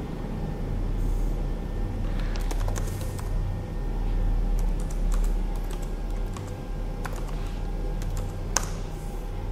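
Typing on a computer keyboard: short irregular runs of key clicks, with one louder key stroke near the end, over a steady low hum.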